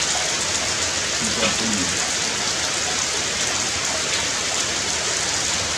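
Steady rain falling on tree foliage, an even hiss, with a faint voice-like sound about one and a half seconds in.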